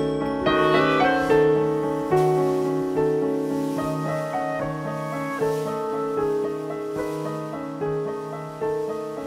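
Instrumental music led by piano: chords struck about once a second, each fading away, with a quick flurry of higher notes about a second in.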